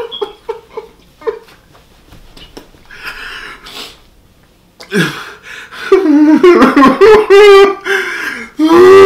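A man's wordless, wavering moaning and whimpering from the burn of extremely spicy hot chicken. It follows faint mouth sounds and a noisy breath about three seconds in, and becomes loud about five seconds in.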